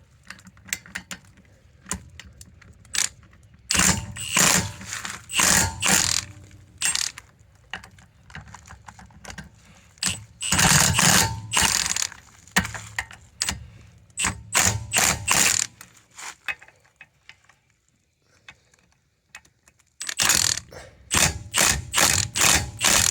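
Ratchet wrench with a 19 mm socket clicking in several quick bursts as rear-wheel lug nuts are loosened, with a quiet pause between bursts.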